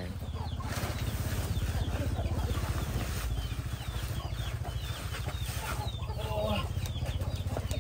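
Chickens calling: many short, high, falling calls in quick succession, over a steady low hum.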